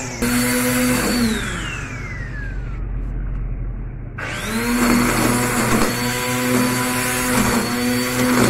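Black & Decker GrassHog 800 W corded electric string trimmer. Its motor whirs up, is released and winds down with a falling whine about a second in, then spins up again about four seconds in. It then runs steadily cutting grass, its pitch dipping briefly now and then.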